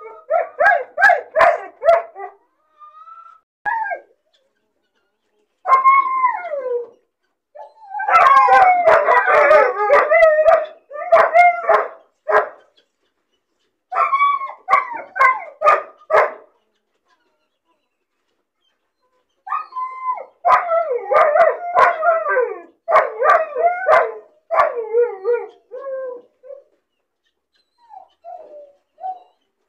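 A puppy crying and barking in repeated bouts: yelping barks mixed with howling whines whose pitch slides downward, with pauses of a few seconds between bouts. These are the cries of a lonely puppy left alone.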